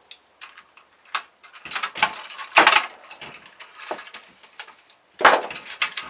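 Irregular clinks and clatter of small metal parts and a hand tool being handled while a scrap air-conditioner control panel is pulled apart, with louder clatters about two and a half seconds in and again near the end.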